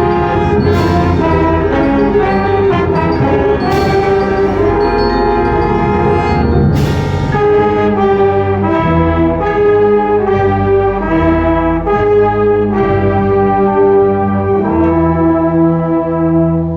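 Live ensemble music with prominent brass playing held chords that change every second or so, with three cymbal crashes in the first seven seconds.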